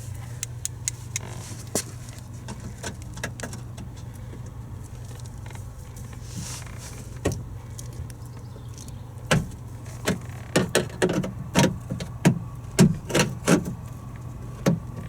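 Scattered sharp clicks and knocks of hand tools and plastic trim parts being handled on a car door. They are sparse at first and come thick in the second half, over a steady low hum.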